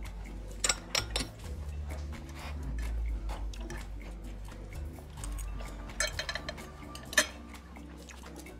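Metal cutlery clinking and scraping against a plate while a diner eats, in scattered sharp clinks, with a cluster about a second in, another about six seconds in and the loudest single clink just after. Low sustained music notes run underneath.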